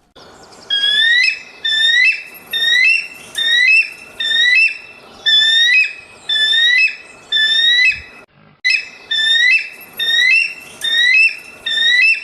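An animal's call: short rising whistled notes repeated about one and a half times a second, with a brief pause about eight seconds in.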